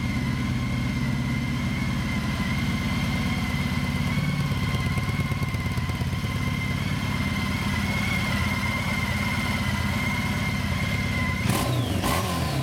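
Honda CTX1300's 1,261 cc V4 engine idling steadily, heard close to its exhaust, with no change in revs. A couple of short knocks near the end.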